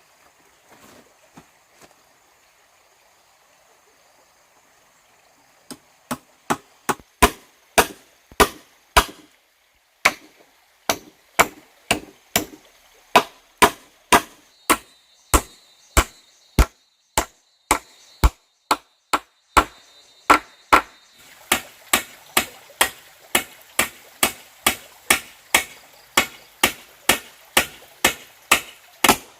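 Repeated sharp strikes on wood, starting about six seconds in at one to two a second and quickening to about two a second in the second half.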